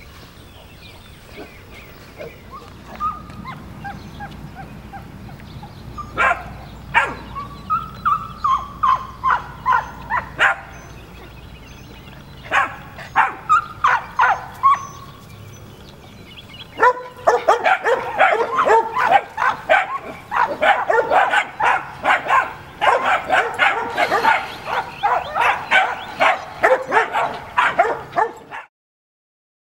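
Working-dog puppies yipping and barking at cattle in high, short yaps, some sliding in pitch. The yaps come in scattered bunches at first, then from a little past halfway turn into rapid, almost continuous yapping that stops abruptly near the end.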